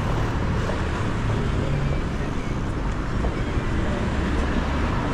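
City street traffic: cars running steadily along the road, with a low engine hum from a passing vehicle in the first couple of seconds.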